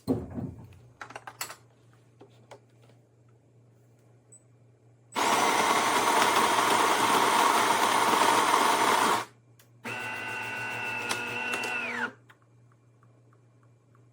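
De'Longhi Magnifica Start espresso machine at work: a few clicks, then a loud steady grinding noise for about four seconds, the built-in grinder grinding beans. After a short pause comes a quieter, steady motor whine for about two seconds that winds down in pitch as it stops.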